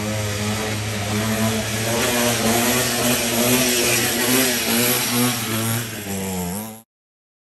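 49cc mini dirt bike engine running hard under throttle, its pitch rising and falling as the rider works the throttle. The sound cuts off suddenly near the end.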